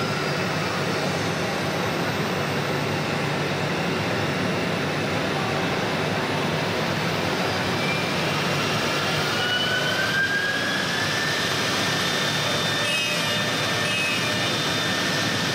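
CC-M1325AC3 multi-spindle CNC router routing a wooden door panel: steady, loud spindle and cutting noise, with a high whine that rises over a couple of seconds past the middle and then holds.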